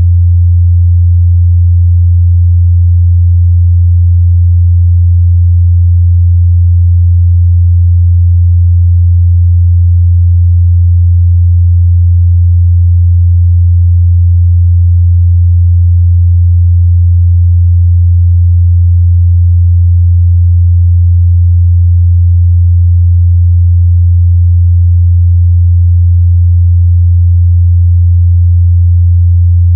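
Steady 87 Hz sine test tone, a single low bass hum held at one pitch and level throughout, used to test how speakers and headphones reproduce mid-bass.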